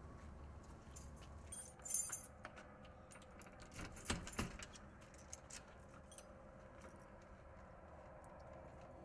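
A bunch of keys jangling, loudest about two seconds in, then a few sharp metallic clicks about four seconds in as a key goes into and turns in a glass door's lock, over a faint steady hum.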